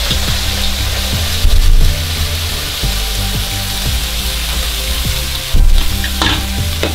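Chicken breast pieces sizzling steadily in hot oil in a nonstick frying pan, with two louder low thuds, one about a second and a half in and one near the end.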